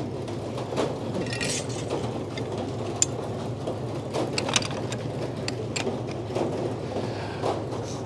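Frick circular sawmill running steadily, a low even hum of the power unit and spinning head saw, with several sharp clicks and clanks from the carriage machinery.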